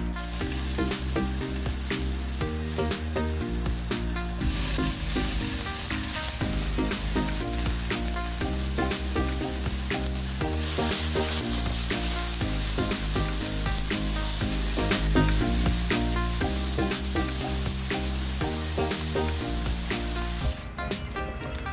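Oil sizzling in a nonstick frying pan as raw pork cubes fry, the sizzle getting louder about four seconds in and again about ten seconds in, then cutting off near the end. Background music plays throughout.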